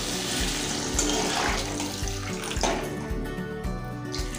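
Water poured from a jug into a kadai of thick curry gravy, a steady splashing pour that is loudest in the first half and then softens. Background music with a steady beat plays underneath.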